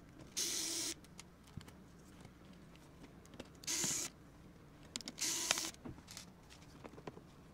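Small electric precision screwdriver whirring in three short bursts of about half a second each as it backs out motherboard screws, with small clicks of screws and parts in between.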